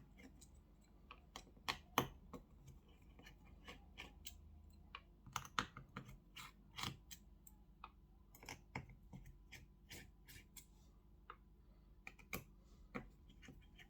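Faint, irregular small clicks and taps as screws are worked out of a smartphone's internal frame with a small screwdriver.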